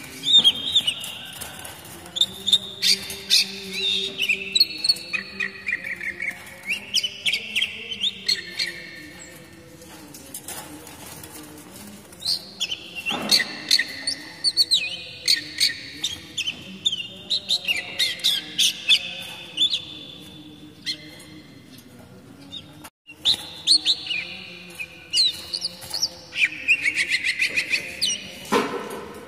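Oriental magpie-robin (kacer) singing: loud, varied whistles mixed with rapid sharp chattering notes, in three long bouts with short pauses between.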